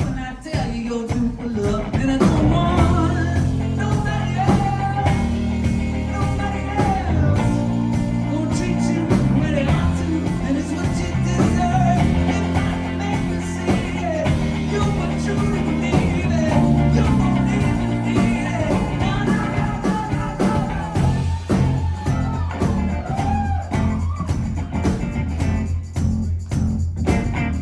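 Live pop-rock band playing, with steady bass and drums under a wavering lead melody.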